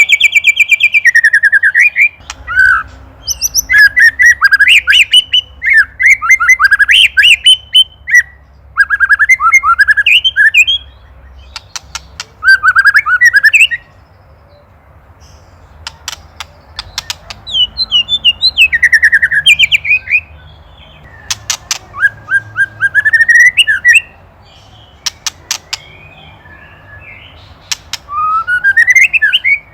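White-rumped shama giving its rattling 'ketrekan' chatter, the agitated call of a shama provoked by a predator: loud bursts of rapid sweeping notes with short pauses between, mixed with sharp clicking notes in the middle stretch.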